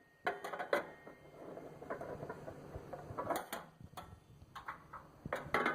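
Microwave turntable parts, the roller ring and tray, being set back into the oven cavity: a series of light clicks and clatters in several short clusters.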